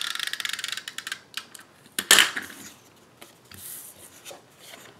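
SNAIL adhesive tape runner rolled across patterned cardstock, its spool ticking rapidly for about the first second. About two seconds in there is a brief, louder scrape, followed by light paper handling.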